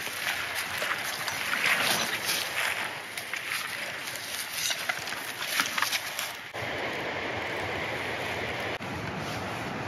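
Footsteps and the rustle of clothing and gear on forest ground, with irregular crunches and scuffs. About six and a half seconds in, this gives way suddenly to a steady rush of flowing stream water.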